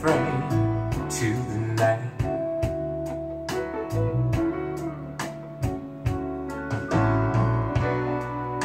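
Soul ballad recording playing through a pair of stereo hi-fi loudspeakers: guitar and bass over a steady drum beat, with little or no singing in this stretch.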